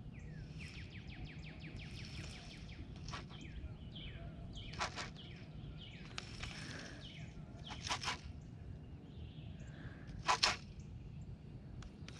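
Quiet outdoor pond-side ambience with scattered short bird chirps, including a quick run of about ten ticks a second early on and a sharper chirp about ten seconds in.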